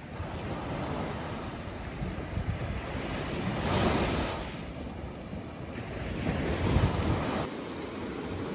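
Ocean surf: small waves breaking and washing up the sand, swelling about four seconds in and again near seven seconds, with wind buffeting the microphone. The sound drops to a quieter, steadier wash near the end.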